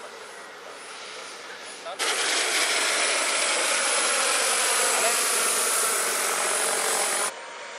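Small gas-turbine engine of a model aircraft running: a loud even rushing with a steady high whine. It starts suddenly about two seconds in and cuts off abruptly shortly before the end.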